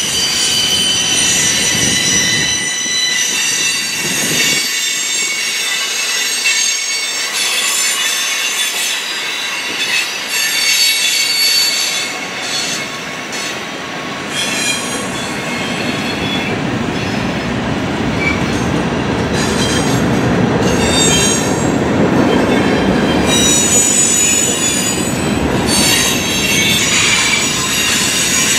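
A long freight train of boxcars, hoppers and coal gondolas rolling steadily past, its steel wheels squealing on the rails in several high-pitched tones that come and go. Under the squeal the wheels rumble and clack on the track, louder in the second half.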